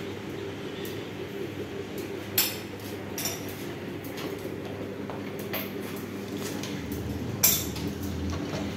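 Steady low machine hum with a few sharp metallic clinks, the two loudest about two and a half seconds in and near the end.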